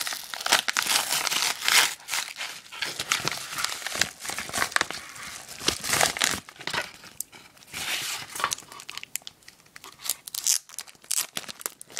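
Yellow padded bubble mailer being torn open and handled, its paper and bubble lining crinkling and tearing in irregular bursts. Near the end, the wrapped cards pulled from inside rustle and crinkle in the hands.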